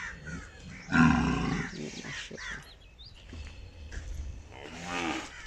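Cattle bellowing: one loud, rough moo about a second in, and a shorter, fainter call near the end.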